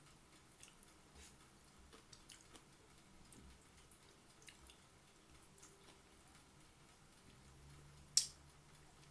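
Soft eating sounds: a spoon scraping and tapping on a plate while scooping mango float, with faint chewing and small mouth sounds. One sharp clink of the spoon against the plate about eight seconds in.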